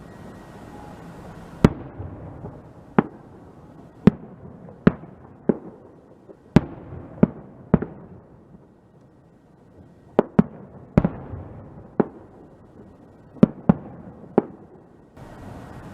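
Fireworks going off: a string of sharp bangs at irregular intervals, about fifteen in all, each with a short echoing tail, with a lull about halfway through.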